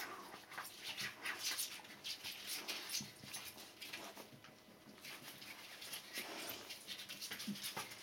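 Two-week-old Border Collie puppies suckling at their mother: a rapid run of soft wet clicks and smacks, with the odd small whimper.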